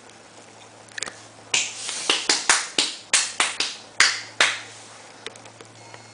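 A quick, uneven run of about a dozen sharp clicks about a second in, lasting some three seconds, over a faint steady low hum.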